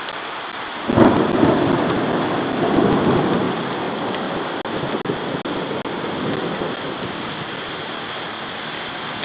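Thunderclap: a sudden crack about a second in, then a rolling rumble that swells again and slowly dies away, over a steady hiss.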